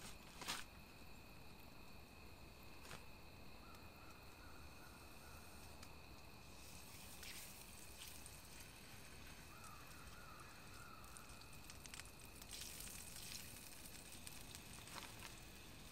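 Near silence: faint outdoor ambience with a few soft clicks and two brief, faint wavering high calls.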